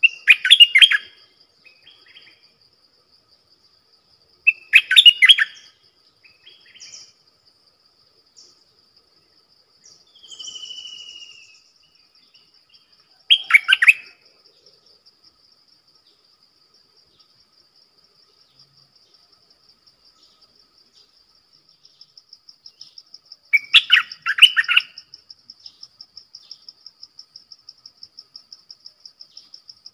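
Stripe-throated bulbul singing: short, bubbly song phrases of about a second each, four times with long pauses between, the last a double phrase, and a faint falling whistle in one of the gaps.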